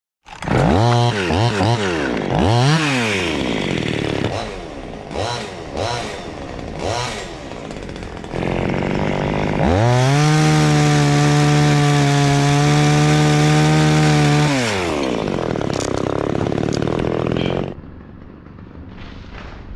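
Two-stroke chainsaw revved in quick blips, its pitch swinging up and down, then held at full throttle for about five seconds before falling back. Near the end the sound drops off sharply.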